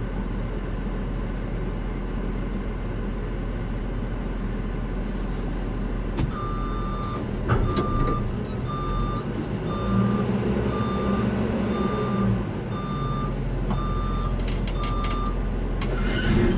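A vehicle's reversing alarm beeping about once a second, starting about six seconds in and stopping near the end, over a steady low engine rumble that swells for a couple of seconds around the middle.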